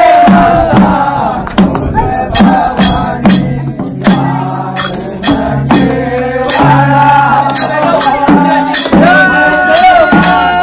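Kumaoni Holi folk song: voices singing over rhythmic hand percussion, with steady low accompanying tones underneath.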